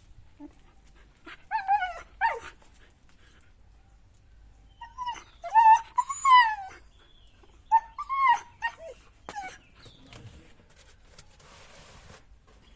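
A dog whining in three bouts of rising and falling whines, the loudest in the middle.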